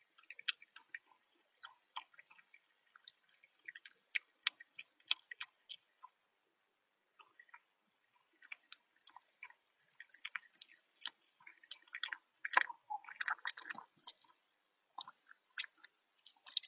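Fox chewing, heard as an irregular run of short wet clicks and crunches with brief pauses. The chewing is quieter and sparser at first, then comes faster and louder from a little past the middle.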